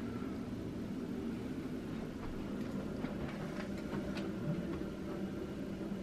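Steady low room hum, with a few faint short high chirps from pet budgerigars in the middle stretch.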